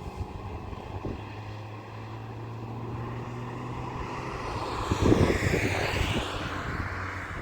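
A motor vehicle passing close by, loudest about five seconds in and dropping in pitch as it goes past, over a steady low engine hum earlier on.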